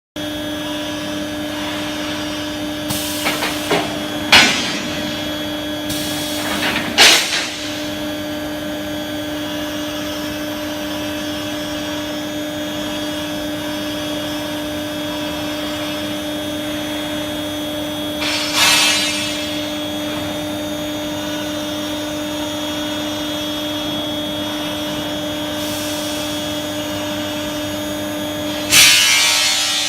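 Induction hardening and tempering line running with a steady electrical hum, broken by a few short metallic clatters, twice in quick succession early, once in the middle and once near the end.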